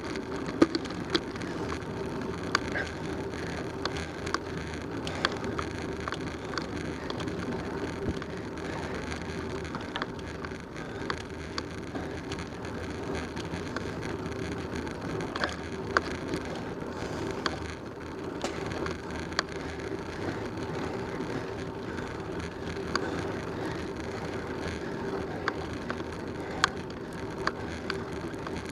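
Bicycle rolling along a paved road: steady tyre and road noise with a low hum, broken by frequent sharp clicks and rattles from bumps.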